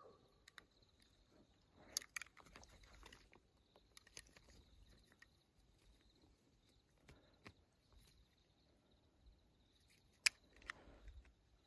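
A mountain lion's quiet vocalization, faint among scattered sharp clicks and rustles close to the recorder, over a steady faint high tone.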